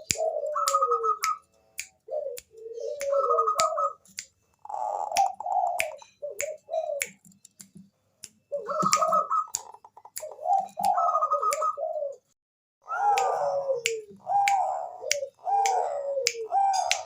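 Zebra dove (Bangkok-type perkutut) cooing: repeated phrases of short, clear notes, some falling in pitch, with brief pauses between phrases. Sharp clicks sound throughout, many of them between the notes.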